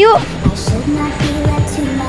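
Background music with a steady beat of low drum hits.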